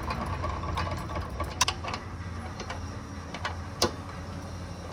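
Irregular light metallic clicks and ticks of hand tools at work on a vehicle, with two sharper clicks about two seconds apart, over a steady low hum.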